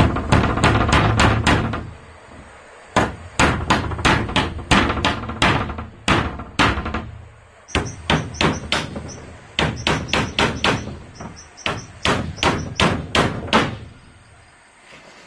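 Claw hammer driving nails through a wooden batten into plank wall boards, in quick runs of sharp strikes with short pauses between nails.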